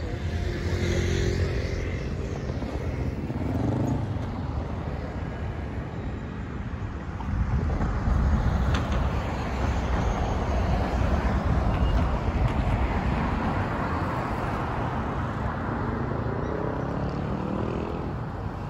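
Steady outdoor rumble of wind and road traffic.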